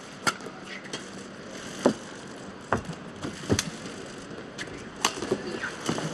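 Badminton rally: sharp racket strikes on the shuttlecock about once a second, with the short squeaks of players' shoes on the court mat, over a steady hall background.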